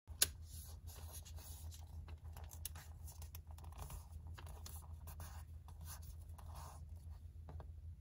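A square sheet of origami paper handled and folded by hand: irregular rustling and crinkling as the edge is brought up to a crease, with fingers sliding along the paper to press the fold flat. A sharp click about a quarter second in is the loudest moment, and a steady low hum sits underneath.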